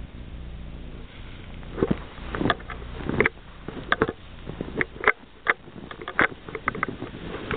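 Footsteps crunching in snow, one short crunch about every 0.7 seconds, coming closer together near the end.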